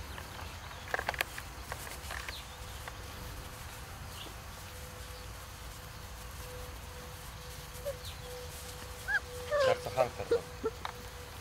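Puppies play-fighting, giving a few short, high yelps and squeals about a second in and a quick burst of them near the end.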